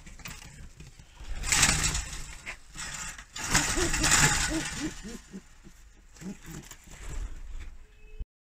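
Domestic pigeons in a pen: two loud rustling bursts about a second long each, then a run of short, low cooing calls.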